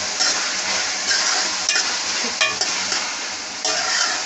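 Minced mutton masala with softened tomatoes sizzling in a metal pot while a spoon stirs and scrapes through it, with a few sharp clinks of the spoon against the pot.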